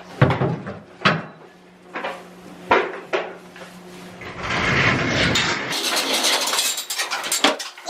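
Mucking out a horse stall's straw bedding. A handful of sharp knocks and clunks from the tool come first, then about three seconds of scraping and rustling as bedding is scooped.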